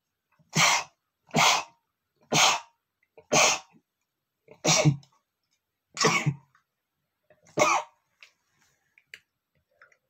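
A man sneezing seven times in a rapid fit, roughly one sneeze a second, from dust in his nose.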